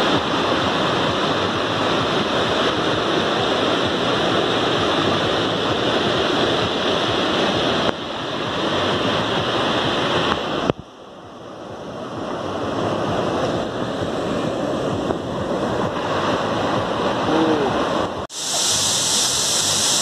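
Rushing water of a rocky stream pouring over stones, a steady loud rush. It breaks off abruptly about eleven seconds in and returns quieter, slowly growing louder, with another sudden break near the end.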